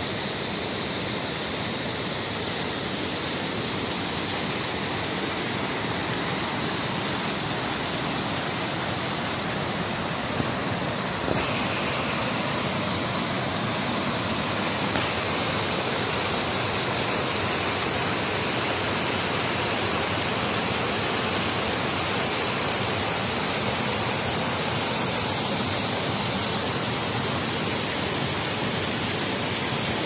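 Small creek waterfall: water pouring steadily over a low drop and rushing through a brush-choked channel. The rush shifts slightly in tone about halfway through.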